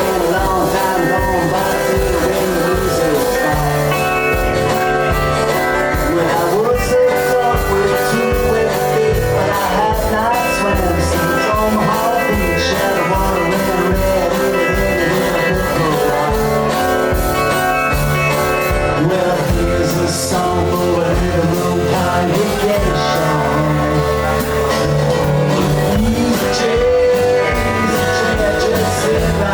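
A band playing a blues-tinged rock song, with guitar and a sung lead vocal over bass and a steady beat.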